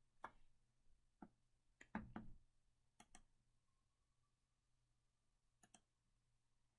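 Faint, scattered computer mouse clicks, some in quick pairs, with a duller knock about two seconds in.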